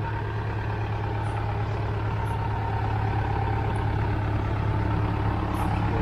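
Tractor engine running steadily with a low, even throb while it powers a log splitter, growing slightly louder toward the end.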